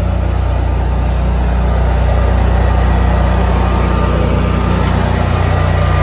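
Generac 24 kW home standby generator running steadily with a constant low engine hum, loaded at about 7,000 watts while it charges the battery system.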